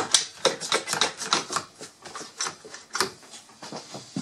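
Trigger bar clamps being handled and tightened on a wooden press: a quick, irregular run of sharp clicks and clacks, about four a second.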